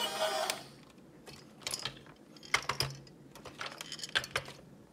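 HunFa battery-powered plastic toy helicopter: its electronic tune cuts off about half a second in, followed by three short clusters of clicking and rattling from the toy's plastic gears and parts as it is handled.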